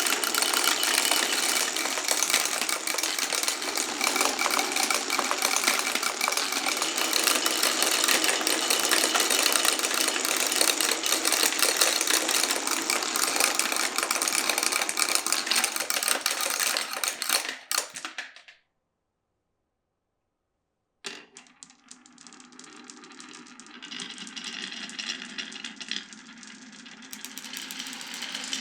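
Many marbles rolling and clattering down a wooden marble run, a dense continuous rattle that fades out about eighteen seconds in. After a few seconds of dead silence, a quieter rolling with scattered clicks starts again and grows near the end.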